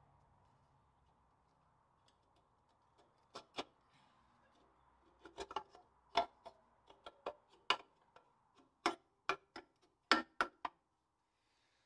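Steel U-bolts clinking and knocking against a Land Rover Series 2 rear axle casing and spring bracket plate as they are fitted by hand. There are about a dozen irregular sharp metal clinks, starting a few seconds in and stopping shortly before the end.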